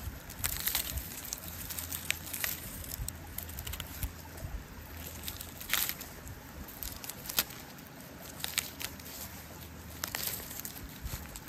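Irregular rustling with scattered sharp crackles and snaps from someone moving through undergrowth, picking fern shoots and handling a bag, over a low steady rumble.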